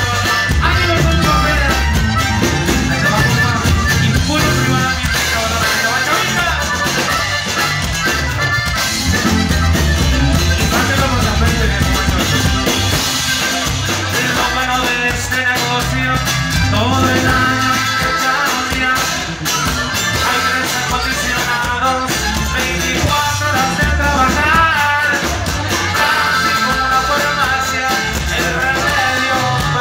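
Live norteño band music: button accordion, electric bass, drums and guitar playing together.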